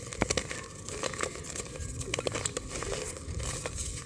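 Dry multani mitti (Fuller's earth) chunks being crushed and crumbled between the fingers into a clay pot: irregular crisp cracks and crackles as the lumps break, over a gritty rustle of powder falling.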